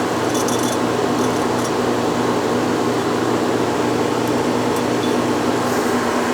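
Steady machine-shop hum of an electric motor or fan running, with a few faint light clicks about half a second in.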